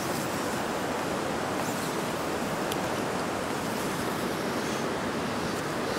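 Steady rush of a small mountain trout stream's running water.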